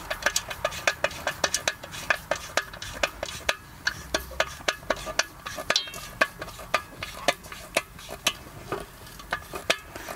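Rapid, irregular metallic clicking and tapping, about four clicks a second with a short lull about six seconds in, as a garden hose end is worked into place on the hub of an Eley wall-mounted hose reel.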